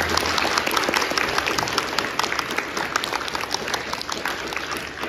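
Audience applauding, many hands clapping at once, slowly thinning toward the end.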